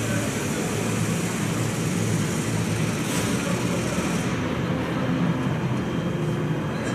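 Steady machinery noise with a low hum; the high hiss drops away about four seconds in.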